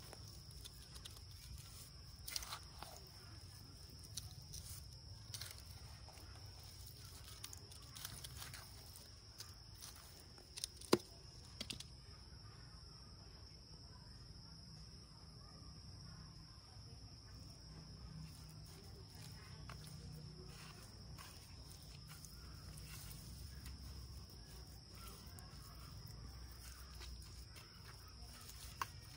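Faint outdoor background with a steady, high-pitched insect drone and a low rumble underneath, broken by scattered small clicks and taps, the sharpest about eleven seconds in.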